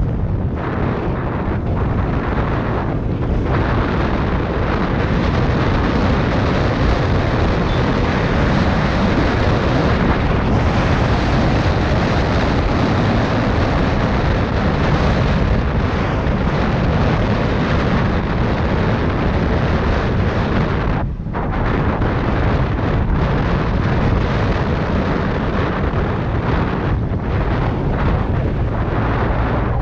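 Wind buffeting the microphone of a moving Yamaha Tricity 125 scooter, a loud steady rumble mixed with road and engine noise. It drops briefly about 21 seconds in.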